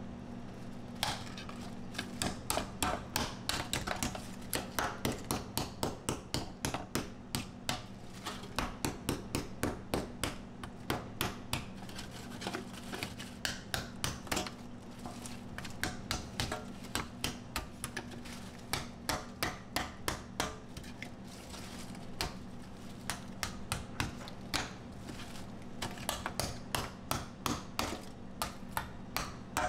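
A slab of set dalgona (Korean honeycomb sugar candy) being struck and broken up with an ice-cream scoop in a steel tray: rapid cracking knocks, several a second in bursts, starting about a second in. A steady low hum runs underneath.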